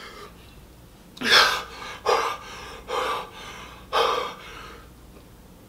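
A man's quick, sharp breaths through an open mouth, four of them about a second apart, as the heat of extremely spicy hot chicken burns his mouth.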